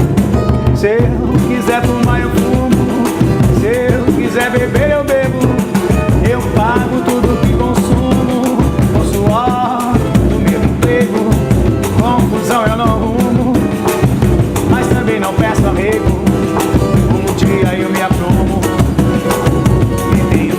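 Samba-pagode band playing live: drums and percussion keep a steady beat under a gliding melody.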